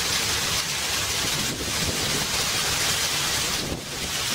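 Steady rushing noise of wind on the microphone and water from a moving river boat, over a low engine drone.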